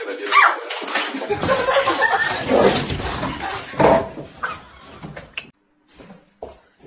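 A house cat crying, mixed with people's voices in a small room, then a few short knocks.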